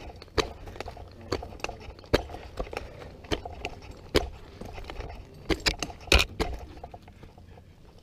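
Climber's hands, boots and harness gear knocking and scraping against the bark of a dead tree trunk as he climbs, with metal gear clinking. The sharp knocks come at irregular intervals, loudest about six seconds in.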